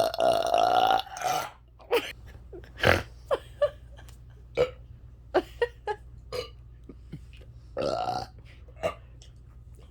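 Human burping: a long drawn-out belch at the start, then a string of short sharp burps, and another drawn-out belch about eight seconds in.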